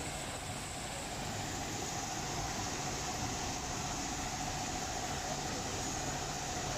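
Automatic tunnel car wash machine running: a steady hiss of spraying water and machinery with a constant whine underneath.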